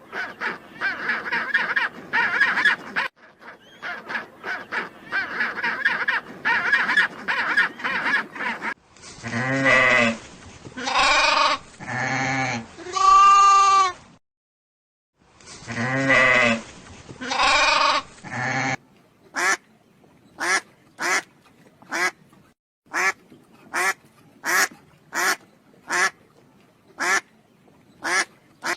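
A sequence of farm-animal calls, among them ducks quacking. First comes a busy stretch of many overlapping calls, then several long drawn-out calls broken by a brief gap, then a run of short single calls about one a second.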